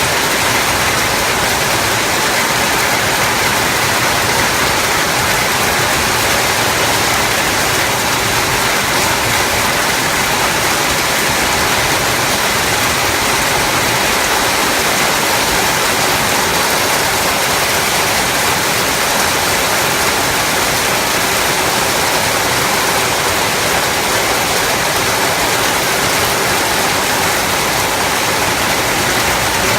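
Hailstorm: hail and heavy rain coming down hard, a dense, steady hiss of countless impacts without a break.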